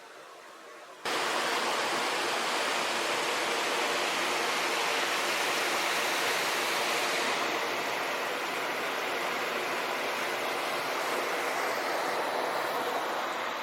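Creek water rushing, a steady noise that starts suddenly about a second in.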